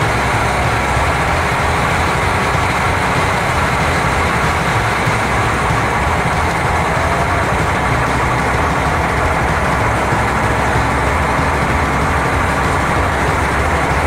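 KiHa 40 diesel railcar's engine running steadily as the train pulls away from the platform.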